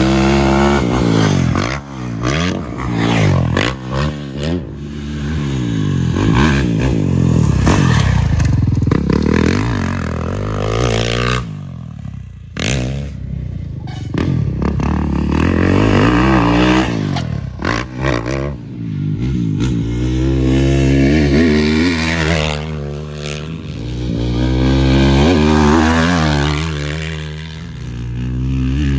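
Dirt bike engines revving around a motocross track, the engine note climbing and falling repeatedly as the riders accelerate and shift. Under it a nearby motorcycle engine idles steadily.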